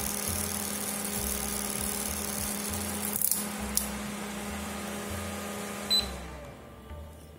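Geek Aire GF6 rechargeable mini fan running at its top speed, a steady motor hum with rushing air. About six seconds in there is a short high beep, and the hum slides down and fades as the fan winds down.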